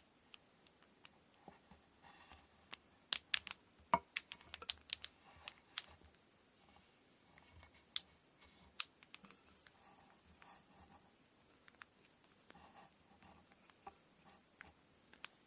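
Light taps, clicks and rustles of hands working with cotton thread and kumihimo braiding gear, with a busier run of sharper clicks about three to six seconds in.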